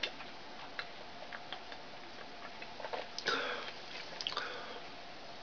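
A man drinking from a 40 oz glass bottle of beer: faint swallowing and mouth clicks. There is a short, louder burst of noise about three seconds in and a smaller one a second later.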